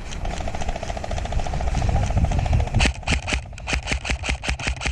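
Fainter rapid airsoft fire at first. About three seconds in, a close electric airsoft rifle (a custom M16) opens up on full auto, a loud string of shots at about seven or eight a second.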